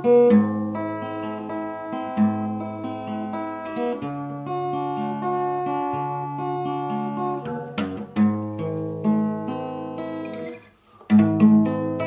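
Cutaway acoustic guitar played solo, chords sounded about every second or two and left to ring. About ten and a half seconds in the sound breaks off briefly, then two strong chords start it again.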